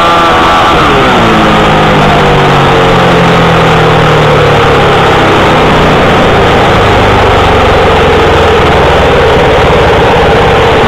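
Racing motorcycle engine heard from an onboard camera, very loud and distorted with wind rush. The engine note falls about a second in as the revs drop going into the bend, then builds again toward the end as it drives out onto the straight.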